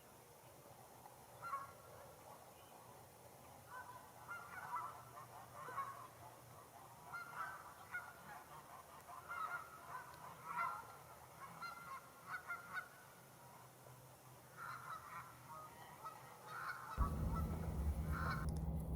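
A flock of Canada geese honking: many short, repeated honks overlapping, with a steady low rumble coming in near the end.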